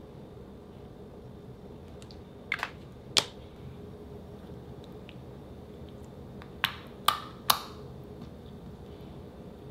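A few short, sharp clicks and pops from white slime being handled on a countertop. A pair and a single click come a few seconds in, then three more about half a second apart as the slime is peeled up off the counter and folded.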